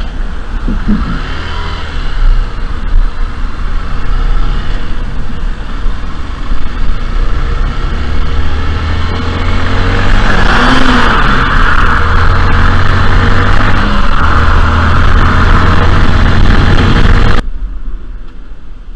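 Motorcycle engine running under way with wind rushing over the helmet-mounted microphone, getting louder about ten seconds in. Near the end the sound cuts abruptly to a quieter engine.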